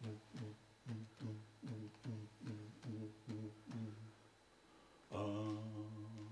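A man's voice making wordless vocal sounds: a rhythmic run of short syllables, each dropping in pitch, about two and a half a second, then from about five seconds in one long held low note. Vocal sound poetry, with no real words.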